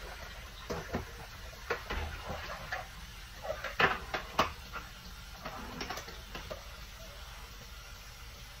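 Clatter of kitchen things being handled during cleaning: a run of light knocks and clinks, loudest about four seconds in, over a faint steady hiss.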